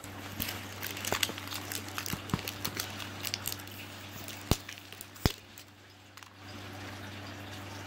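Clear plastic shrink-wrap band crinkling and crackling as it is peeled off a plastic surprise-egg capsule, with two sharp clicks a little past halfway.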